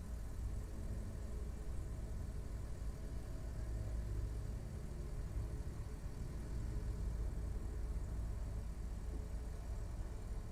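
Steady low rumble of a car engine running.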